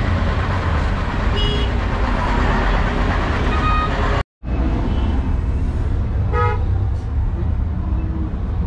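Busy street traffic: a steady rumble of engines and road noise, with several short car-horn toots; the loudest toot comes about six and a half seconds in. The sound cuts out for a moment just after four seconds.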